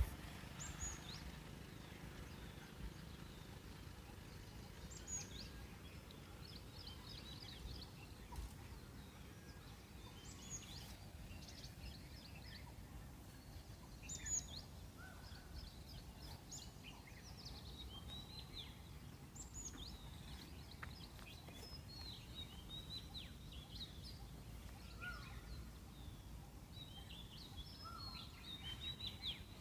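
Small birds chirping: many short, high calls, some sweeping downward, over a low steady background rumble.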